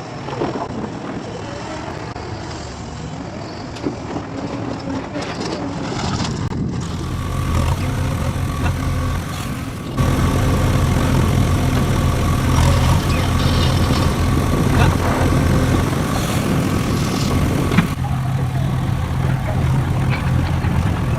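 Engine of heavy construction machinery running with a steady low hum, becoming louder with a sudden jump about ten seconds in.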